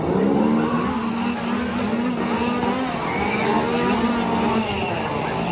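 Two-stroke chainsaw running at high revs with a buzzing engine note, its revs easing briefly about three seconds in before picking up again.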